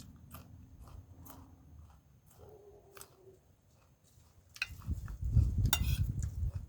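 Close-up eating sounds: a few light clicks of a spoon on a dish, then, from about four and a half seconds in, louder chewing with sharp clicks.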